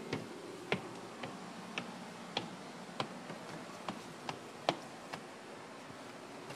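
Footsteps on deck boards and stairs: sharp clicking steps at about two a second and an uneven pace, which stop about five seconds in, over a faint steady hum.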